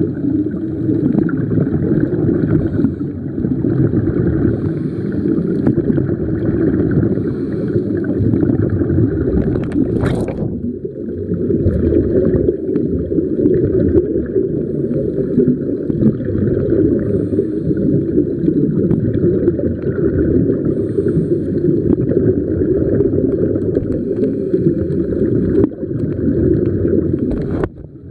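Low, muffled rushing of water picked up by a camera held underwater, steady and dense. There is a brief sharp click about ten seconds in and another near the end.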